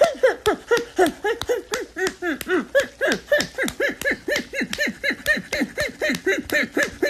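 A man's voice rattling off a fast, unbroken string of short pitched syllables, about six a second, each sliding up and down in pitch: a rapid-fire vocal stunt rather than words.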